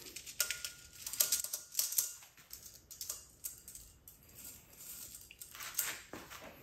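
Light metallic clicks and clatter as a needle roller bearing is handled and slid down onto a steel transmission input shaft, in irregular bunches of taps.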